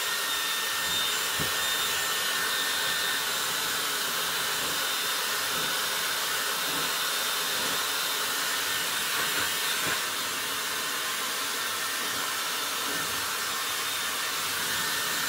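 Hand-held hair dryer switched on and blowing steadily on wet hair: an even rush of air with a faint high whine from its motor.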